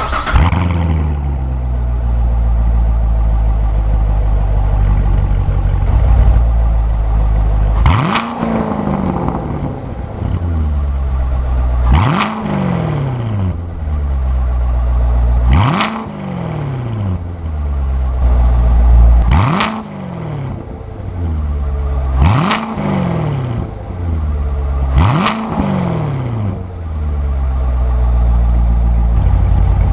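2019 Chevrolet Corvette Grand Sport's 6.2-litre LT1 pushrod V8 heard at its quad-tip exhaust, idling steadily and blipped six times. Each rev rises sharply and falls straight back to idle. The first three revs are in Tour mode and the last three in Track mode, which sound a little different.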